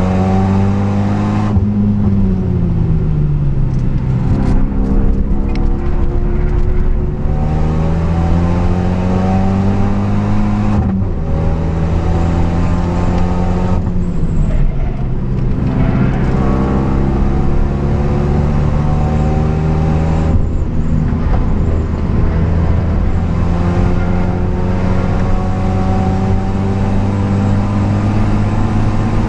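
Renault Mégane 3 RS's turbocharged four-cylinder engine heard from inside the cabin, pulling hard. Its note dips briefly at first, then climbs steadily under acceleration, dropping back sharply three times (about a third of the way in, about halfway, and about two-thirds in) before climbing again.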